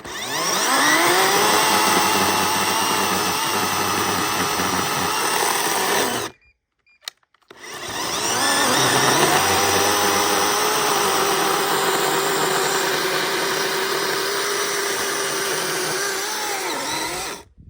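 Electric chainsaw cutting into a tree stump. The motor spins up and runs under load for about six seconds, then stops briefly. It starts again, rising in pitch, and cuts for about nine more seconds before stopping.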